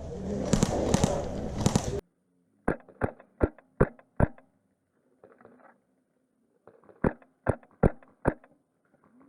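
Airsoft gunfire crackling over loud field noise, which cuts off abruptly about two seconds in. Then two strings of sharp, evenly spaced airsoft rifle shots, five and then four, about two and a half a second.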